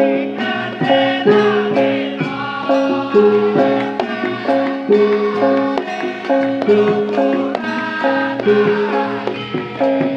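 Live music: instruments playing a busy, repeating melody of short pitched notes over a steady low note.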